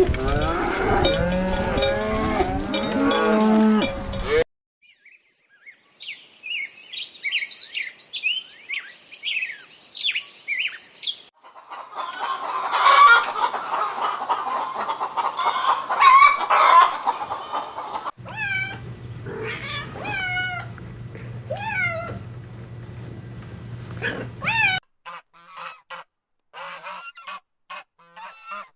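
Farm fowl calling, in several separate stretches that cut off abruptly: a dense chorus of calls at first, then higher chirping, a crowded cluster of calls, a run of single calls that slide in pitch, and short quick chirps near the end.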